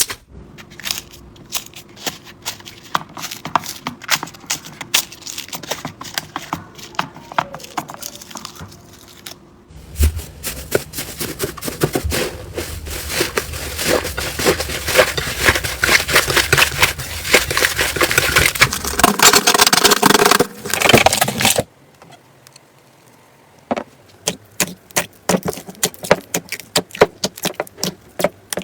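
Slime being squished, giving a run of crackling and popping clicks. The crackling turns dense and loud for about twelve seconds midway, stops suddenly, then comes back as sparse sharp clicks.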